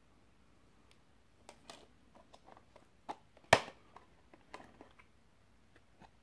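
Clear plastic Blu-ray case and disc being handled: a run of small plastic clicks and knocks as a disc is pressed onto the case's centre hub, with one sharp snap about halfway through.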